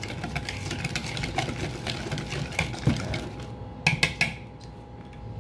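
A wire whisk stirring a thick ube filling in a glass bowl, the utensil scraping and tapping rapidly against the glass, with a few louder clinks about four seconds in before it goes quieter.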